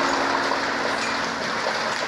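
Heavy wind-driven rain pouring down in a storm, a steady dense hiss, with a faint low steady tone underneath for the first second or so.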